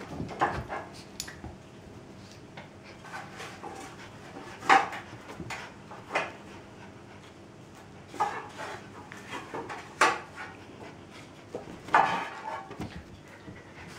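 A Sheltie and a Birman kitten play-fighting on a sofa: scuffling with a series of short, sharp sounds every second or two, the loudest about five, ten and twelve seconds in.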